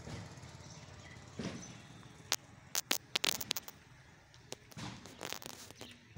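A quick cluster of sharp snapping cracks a little past the middle, over low outdoor background noise, with a few softer thuds before and after.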